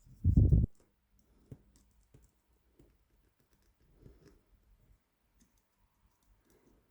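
A short low thump just after the start, then faint, scattered small clicks of a metal probe and tensioner working the pins of an 8-pin tubular cam lock.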